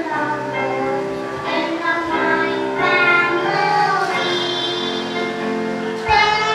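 Children singing a gospel song into microphones over instrumental accompaniment, with a brief low thump near the end.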